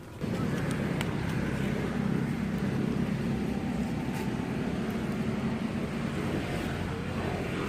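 Steady low rumbling background noise, with faint clicks about one and four seconds in.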